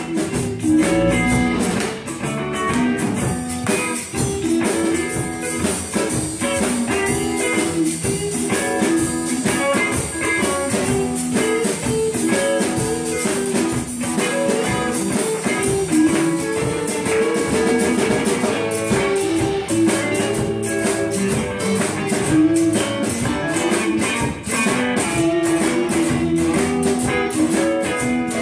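Live blues band playing: electric and acoustic guitars over a drum kit, with steady drum hits all the way through.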